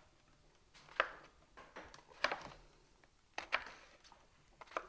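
Kitchen knife chopping vegetables into large chunks on a wooden cutting board: separate sharp knocks of the blade hitting the board, about one a second and irregular, with two quick ones together midway and near the end.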